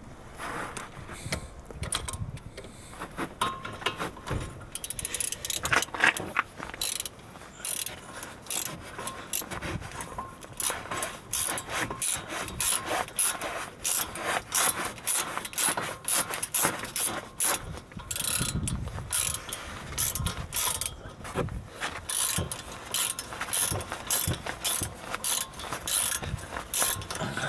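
Hand ratchet clicking in quick runs as a hex bit on an extension turns the front brake caliper guide bolt of a VW Golf Mk5.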